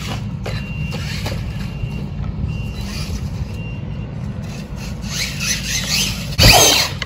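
Losi LMT Grave Digger RC monster truck driving over grass, its electric motor and drivetrain whining faintly over a steady low rumble. A loud sudden knock about six and a half seconds in.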